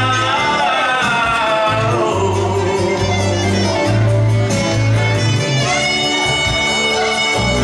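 A man singing a pop ballad into a microphone over a recorded backing track with a steady bass; a long note is held near the end.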